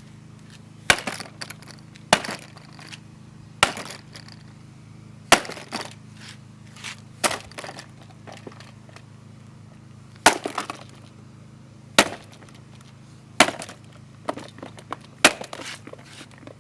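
Two-pound hammer smashing a cheap coffee machine: about ten hard blows, unevenly spaced a second or two apart, each with a cracking, breaking clatter of pieces.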